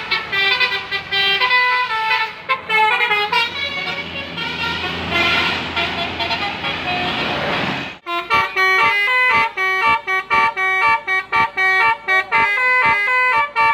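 Telolet basuri, an Indonesian multi-trumpet musical bus horn, playing a quick melody of horn notes. About eight seconds in it cuts to another horn tune played as short, clipped notes, about two or three a second.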